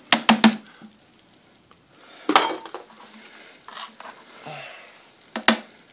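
Thin aluminium strips clinking and clattering against each other and a plastic bucket as they are pulled out of the wet fly wire: three quick sharp clinks at the start, a clatter a little past two seconds, and one more sharp clink near the end.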